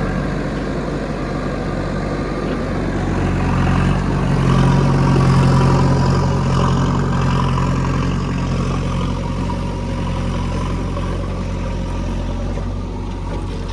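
Diesel engine running steadily, growing louder about four seconds in and easing back a couple of seconds later.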